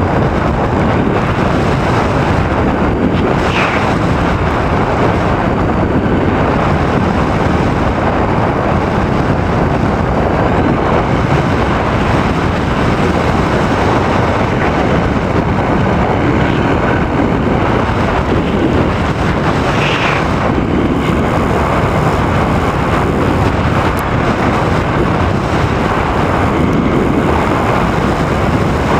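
Steady rush of wind over the microphone of a camera riding on a radio-controlled model plane in flight.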